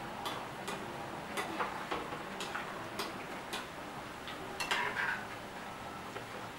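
Samosas deep-frying in hot oil in a kadhai: a steady hiss with irregular crackles and pops. A metal slotted spoon moves them through the oil, with a louder burst of sound just before five seconds in.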